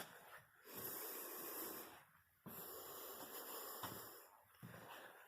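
A hiker's heavy breathing close to the microphone: two long breaths, the second longer than the first.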